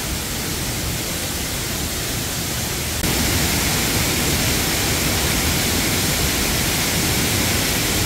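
Steady rushing of a 20 m waterfall in heavy flow, its volume swollen by recent monsoon rain, getting louder about three seconds in.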